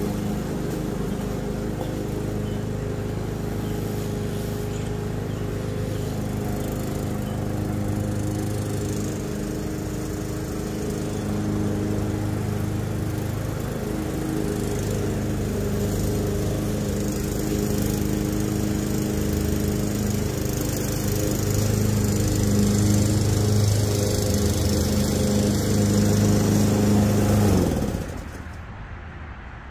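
Craftsman gas walk-behind lawn mower engine running steadily while cutting grass, growing louder as it comes closer. About 28 seconds in the engine shuts off, its pitch dropping as it winds down.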